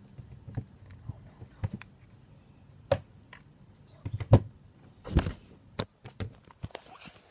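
Scattered clicks and knocks of a magnetic 3x3 speedcube being turned and handled, irregular rather than a steady turning rhythm, with a sharp louder clack about four seconds in and a short scraping knock just after five seconds.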